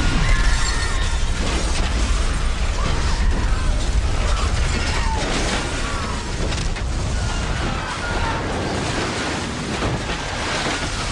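Film sound effects of an explosion tearing through a ship's ballroom: a loud, continuous deep rumble with crashes of flying debris, and people screaming over it.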